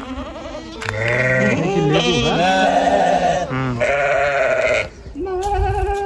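Several goats bleating, their calls overlapping from about a second in, with a short pause and then another bleat near the end.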